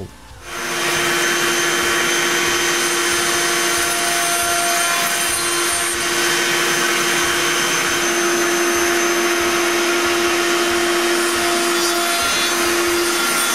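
Electric router with a roundover bit starting about half a second in and then running steadily at a constant pitch, rounding over the edges of holes in wood.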